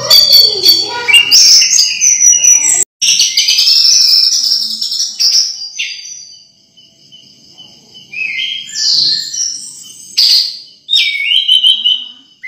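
Orange-headed thrush singing: a fast, varied run of whistled phrases, loud and dense for the first few seconds with a brief gap about three seconds in, then sparser phrases of falling notes.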